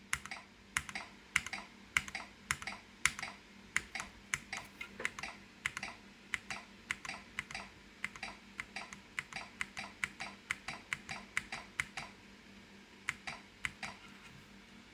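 Escape key of a Keychron Q1 mechanical keyboard pressed over and over, about two presses a second, each a sharp click as the switch goes down and comes back up. The key is being tested because it intermittently fails to register. The tapping pauses briefly near the end, then a few more presses follow.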